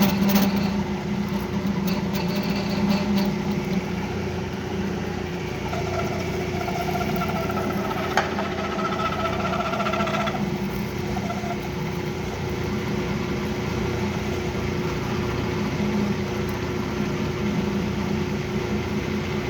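Metal lathe running with a steady hum. For about five seconds in the middle, a higher ringing tone rises from the tool cutting the work, with a sharp click partway through. The cut sounds off in a way the machinist puts down to a dull cutting tool set in the wrong position.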